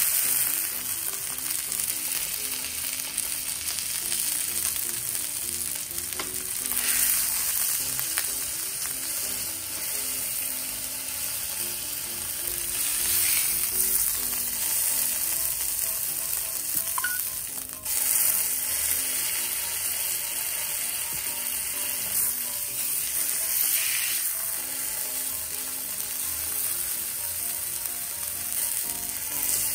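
Block of beef round searing in hot olive oil with sliced garlic and rosemary in a frying pan, a steady sizzle. The sizzle swells briefly several times as the block is turned with tongs.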